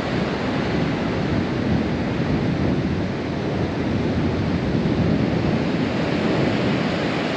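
Gulf of Mexico surf breaking and washing up on a sandy beach: a steady rush of waves.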